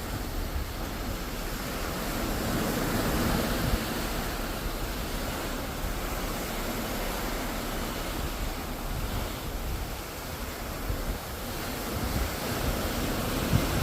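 Sea water rushing and washing below the ship, swelling and easing, with wind rumbling on the microphone.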